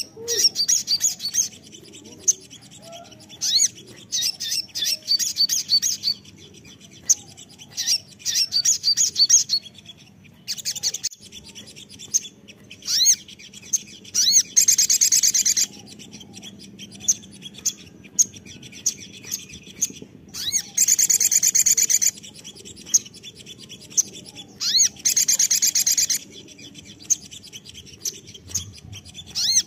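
Male olive-backed sunbird (kolibri sogon) singing: repeated bursts of high, rapid chirps, with two longer, denser trills around the middle.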